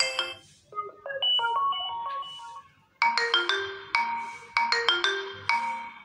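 Smartphone system ringtones played as previews through the phone's speaker, one after another: short melodic chime and mallet-like phrases. Each stops abruptly after a second or two when the next is chosen, and the last one repeats a short figure of notes about twice a second.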